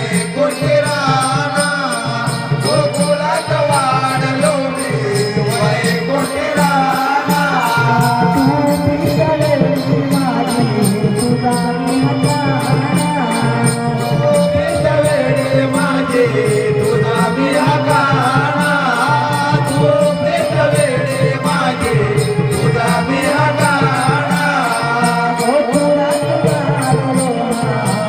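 Marathi folk song: a voice sings a gliding melody over a steady percussion rhythm with regular jingling clicks.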